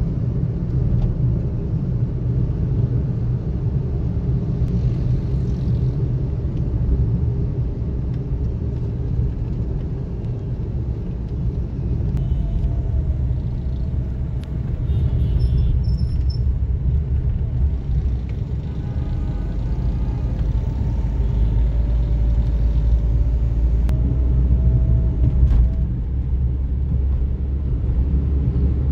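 Steady low rumble of a car's engine and tyres heard from inside the cabin while driving in city traffic. The rumble grows heavier about two-thirds of the way through.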